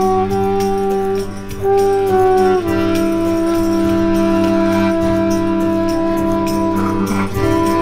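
Button accordion playing held chords: a few short chord changes, then one long chord sustained from about a third of the way in until near the end, with faint ticking taps from light percussion behind it.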